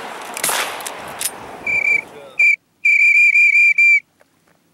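A shotgun shot just after the start, then a loud whistle at one steady high pitch, blown in short blasts and ending in a warbling trill of about six pulses a second.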